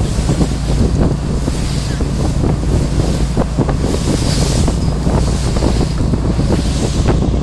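Motorboat under way: the engine runs steadily under heavy wind buffeting on the microphone, with water splashing against the hull.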